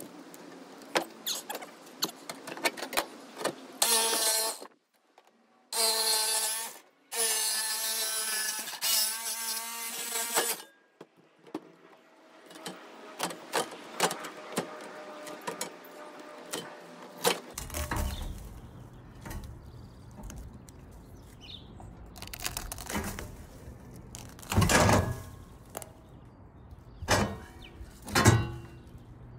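A power tool motor runs in three bursts, the last about three seconds long, with its pitch wavering under load, amid scattered clicks and knocks of handling tools and metal. In the second half, a low hum and a few heavier knocks.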